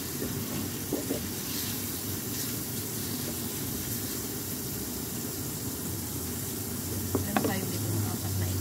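Shrimp and sliced onions sizzling in a wok as they are stirred with a wooden spatula. A couple of sharper knocks from the spatula on the pan, about a second in and again near the end.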